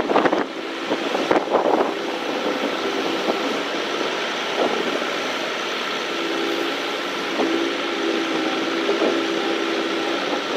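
Machine engine running steadily, with a few knocks in the first two seconds and a steady hum joining about six seconds in.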